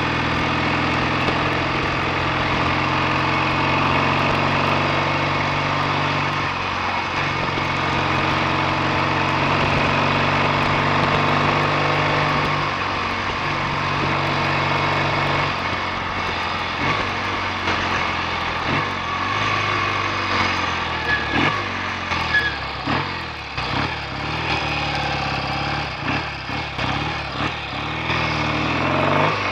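BSA A65 650 cc parallel-twin engine running on the road at a steady throttle, its note dipping briefly twice. From about halfway it settles lower with irregular sharp pops, then picks up again at the very end.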